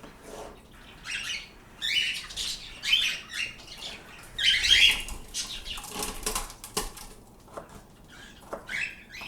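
Pet birds stirring, with a series of short, irregular bursts of wing flapping. The loudest cluster comes about halfway through.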